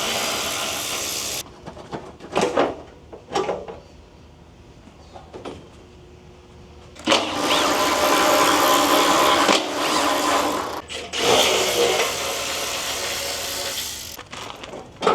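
A power tool's motor runs in two long bursts, briefly at the start and then steadily for about seven seconds from the middle on, with a few short knocks in between, as body panels are unbolted from the car.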